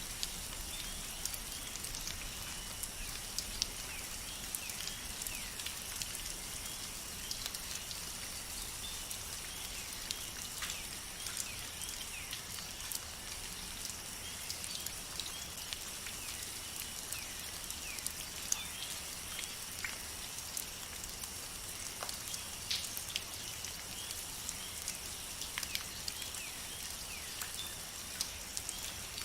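Steady rain falling in a forest, with many separate drops ticking close by over an even hiss, and a steady high-pitched hum underneath.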